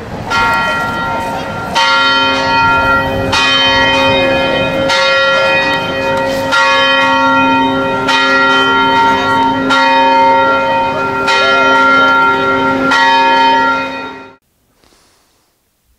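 Church bells ringing, several bells of different pitch struck in turn about every one and a half seconds, each stroke humming on under the next. The ringing dies away quickly about fourteen seconds in.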